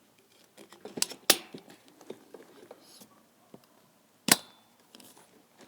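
Scattered clicks and knocks of a cordless rechargeable fan being handled and set down, with two sharp knocks about a second in and a loud one past four seconds.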